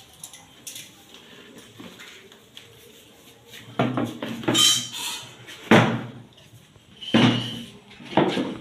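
Household clatter: a few loud knocks and scrapes of things being moved or set down, one with a brief squeak, starting about four seconds in.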